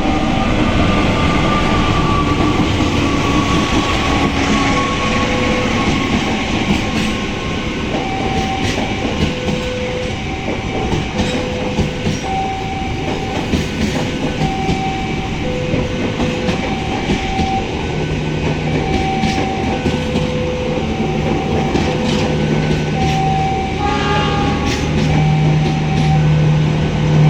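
A train rolls through a double-track level crossing, its wheels clattering on the rails, while the crossing's warning alarm repeats a two-tone beep, alternating high and low about once a second. Over the first few seconds a horn note slides slowly down in pitch.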